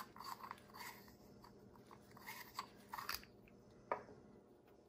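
Faint rubbing and small clicks of gloved hands handling a plastic soil-test filtering tube and cap, with one sharper plastic click about four seconds in as the cap is set down on the table.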